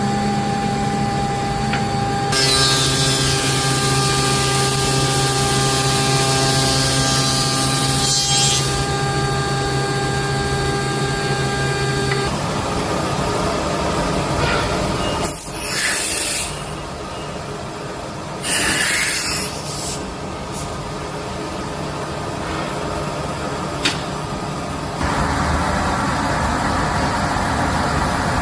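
Industrial wood shaper running. A steady motor hum with a high hiss lasts through about the first twelve seconds, then the sound turns noisier, with two short hissing air blasts and a sharp click.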